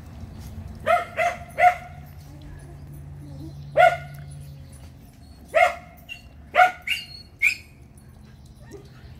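An adult dog barking in short, sharp barks, about eight in all: three in quick succession about a second in, then single barks and a quick pair over the next few seconds.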